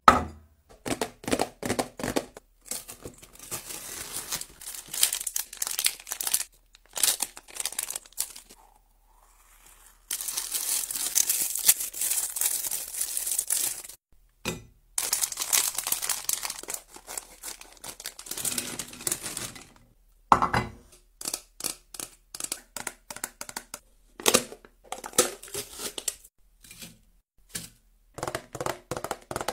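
Snack packaging crinkling and being torn open, in long crackly stretches. Between them come short clicks and taps as snacks are handled and set down on a serving platter.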